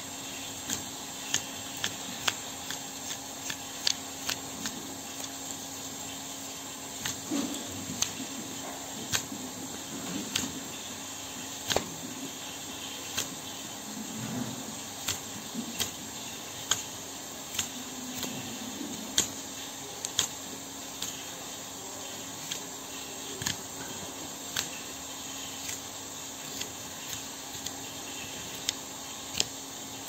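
A hoof knife paring the horn of a cow's claw: short, sharp, irregular clicks and scrapes of the blade, roughly one a second, over a steady low hum and hiss.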